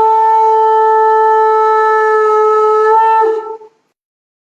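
A conch shell (shankh) blown in one long, steady note lasting about three and a half seconds, which wavers and breaks briefly before it stops.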